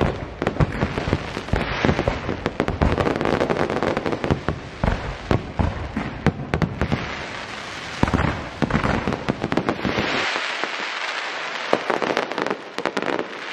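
Aerial fireworks exploding in rapid, overlapping bangs and crackles. About ten seconds in the deep booms stop, leaving a lighter, higher hiss with scattered pops.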